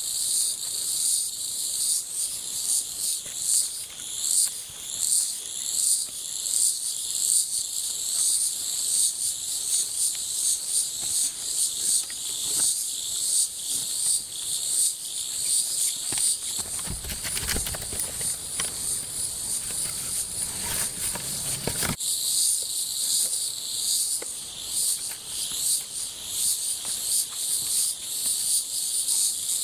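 Chorus of insects chirring steadily in a high, pulsing band. From about 17 to 22 seconds in, a lower rustling, knocking noise joins it and then cuts off suddenly.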